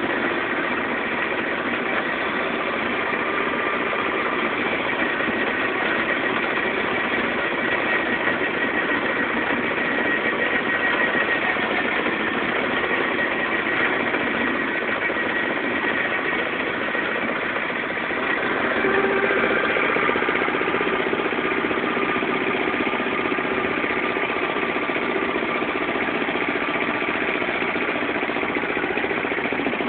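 Agrale 4100 tractor's single-cylinder diesel engine running steadily and loudly, roaring, with a slight rise in level about two-thirds of the way through.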